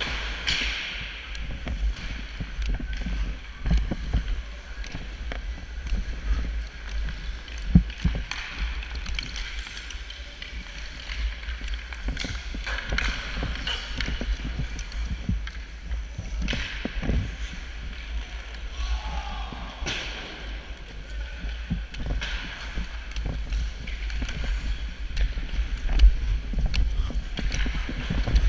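Sled hockey sled gliding on rink ice. Its blades hiss, and the picks on the player's sticks scrape and chop into the ice as he pushes himself along, with irregular knocks every couple of seconds over a steady low rumble.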